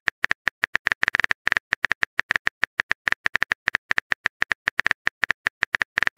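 Phone keyboard typing sound effect: rapid, even clicks, one per letter typed, about eight to ten a second.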